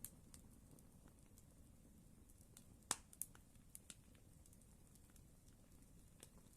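Campfire crackling quietly: scattered sharp pops from the burning wood, the loudest about three seconds in, over a low steady rumble.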